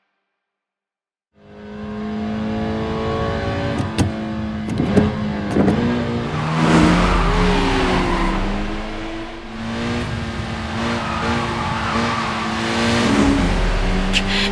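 After about a second and a half of silence, two racing cars' engines, a Nissan Skyline GT-R R32 and a Mitsubishi Lancer Evolution IV, run hard at high revs, the pitch rising and falling with the throttle. Tyres squeal through the corners, and a few sharp clicks cut through.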